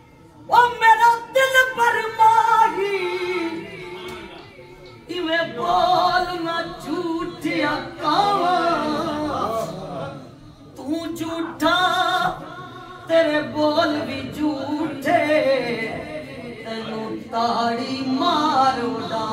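A man's voice singing a naat verse unaccompanied, in several long melodic phrases with wavering, ornamented notes and short pauses between them.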